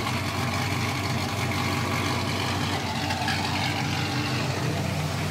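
LS1 5.7-litre V8 idling roughly with a sputtering misfire, its exhaust running without catalytic converters. The owner suspects a fouled spark plug, though no misfire code is set.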